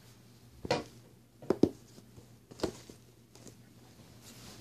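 A few light taps and knocks, one after another about a second apart with a quick double near the middle, from things being handled, over a faint steady low hum.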